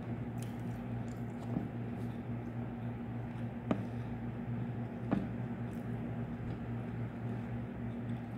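Quiet eating sounds: soft chewing and a few light clicks of a utensil against a food container, over a steady low hum.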